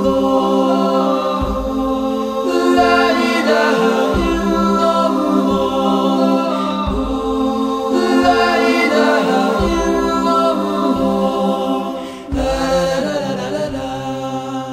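A cappella nasheed: layered voices hold sustained chords without instruments, over a deep pulse that recurs about every three seconds.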